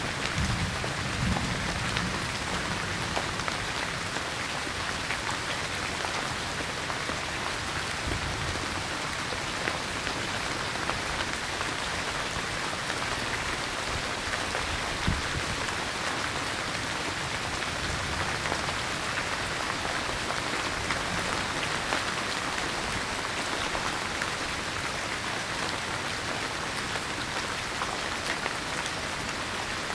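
Steady rain falling on forest leaves, an even hiss with scattered drops. There are a few soft low thumps in the first couple of seconds.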